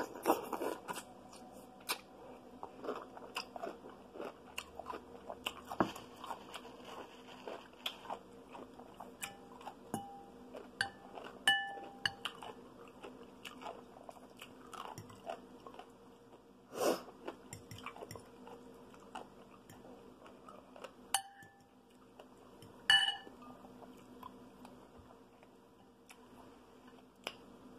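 Close-up crunchy bite into a whole dill pickle, then steady chewing and mouth sounds. A few sharp clinks against glass bowls ring on briefly now and then.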